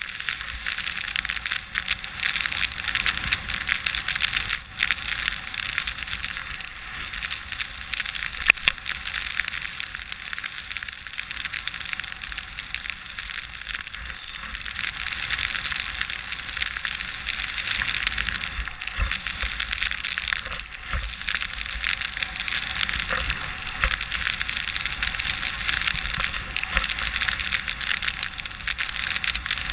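Skis hissing and scraping over fresh snow during a downhill run, heard from a helmet-mounted camera with wind buffeting its microphone as a low rumble. One sharp knock about eight seconds in.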